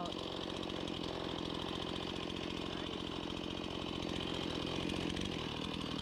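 Two-stroke chainsaw running at a steady speed, with no revving or cutting.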